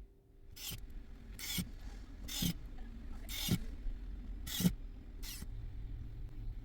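Six short scraping strokes, about one a second, from a small screwdriver driving the remaining screws into the smartphone's midframe.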